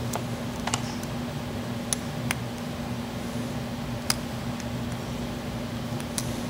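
Lock pick and tension wrench working the pins of a Yale pin-tumbler padlock: scattered light metallic clicks, about eight, over a steady low hum.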